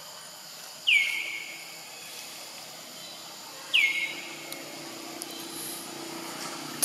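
A bird calling twice, about three seconds apart. Each call is a sharp whistle that drops quickly in pitch and then levels off briefly. A faint steady high hum runs behind the calls.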